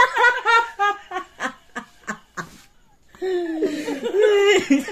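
A man and a woman laughing: a run of quick laughter pulses that die away about two and a half seconds in, then after a short lull laughing voices start again near the end.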